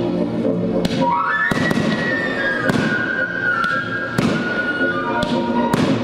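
Display fireworks bursting in the sky, about seven sharp bangs roughly a second apart, over loud music.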